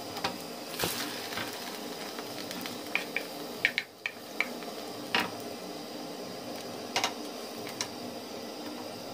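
Egg omelette sizzling in a frying pan with a steady hiss. A spatula clinks and scrapes against the pans as diced vegetables are added, with a cluster of sharp clicks near the middle and a few more later.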